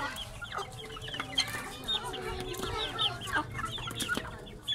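Chickens clucking in a coop, with a steady run of short, high-pitched peeping calls several times a second and a few sharp clicks.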